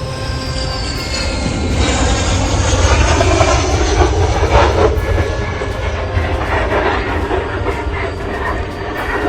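Su-25 attack jet in a gear-up belly landing: a loud, heavy rumble and grinding as the fuselage scrapes along the runway, building to its loudest in the middle, with a high engine whine falling in pitch near the start.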